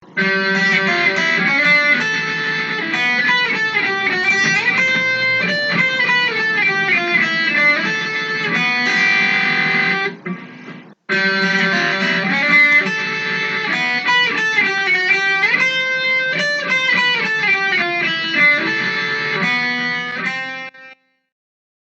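Electric guitar intro music with fast picked runs, stopping briefly about halfway through, then ending abruptly near the end.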